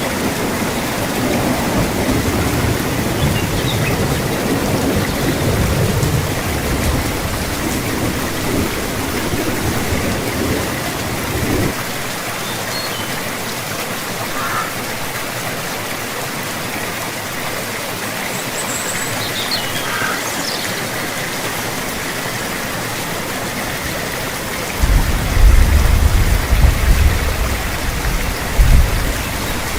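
Steady rain falling. A deep low rumble runs under it, cuts off abruptly about twelve seconds in, and comes back louder near the end. A few faint high chirps sound in the middle.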